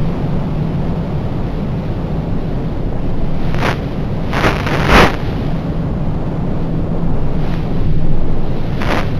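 Wind buffeting the microphone: a steady rushing with louder gusts around the middle and again near the end, over a faint steady low hum.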